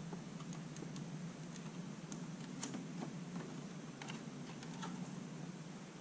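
Faint, irregular small clicks and ticks as a Quadro P2000 graphics card is pressed and worked down into a PCIe x16 slot on a server riser board, over a low steady hum.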